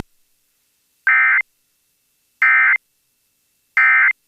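Three short bursts of EAS SAME digital data tones, each about a third of a second and about 1.3 s apart: the End of Message signal closing a NOAA Weather Radio warning broadcast.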